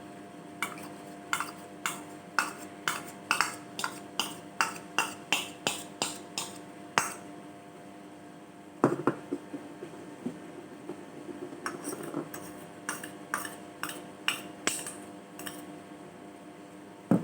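A utensil clinking against a bowl while chicken is mixed into its soy-sauce marinade: runs of sharp clinks about two a second, broken by a pause and a louder knock about halfway through.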